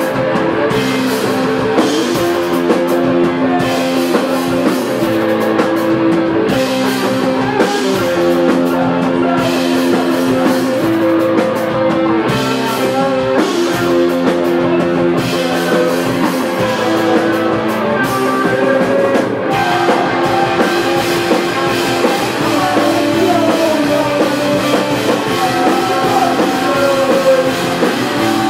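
Live rock band playing: electric guitar and bass guitar chords over a drum kit with cymbals, with no break.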